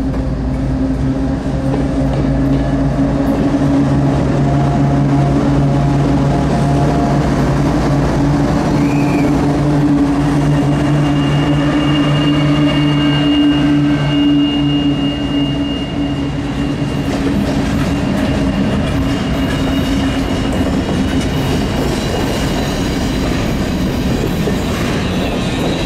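Canadian Pacific diesel freight locomotives passing close by with a steady engine drone, then freight cars rolling past with a rumble of wheels on rail after about sixteen seconds. A thin high wheel squeal runs for a few seconds midway.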